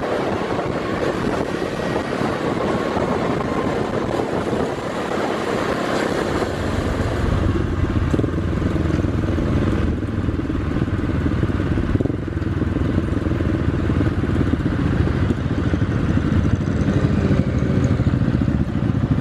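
A motorcycle engine heard from on board while riding at road speed, mixed with wind rushing over the microphone. About seven seconds in, it changes to the engine running steady and low as the bike rolls along slowly.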